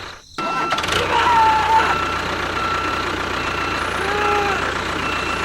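A steady engine-like running noise, cut off briefly right at the start and then carrying on, with a few short whistling tones over it.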